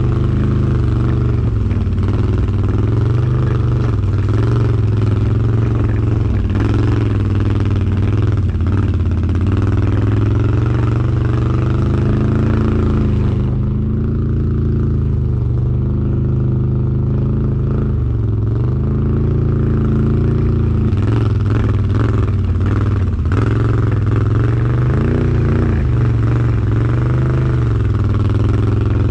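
Can-Am Outlander 1000R ATV's V-twin engine running at low, varying throttle, its pitch rising and falling gently as it tows a loaded sled through snow. Scattered knocks and rattles come through over the bumps.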